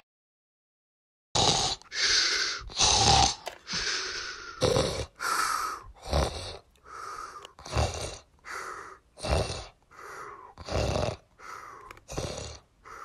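A person snoring, or imitating snoring with the voice, in a steady rhythm of about one breath every 0.7 seconds, louder snores alternating with softer breaths out. It starts about a second in.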